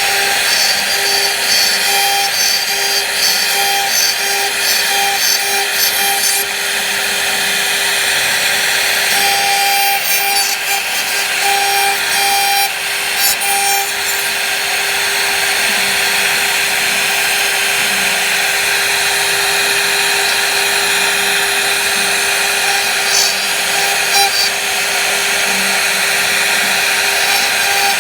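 Power tool cutting into wood: a steady motor whine under a continuous rasping, grinding cut.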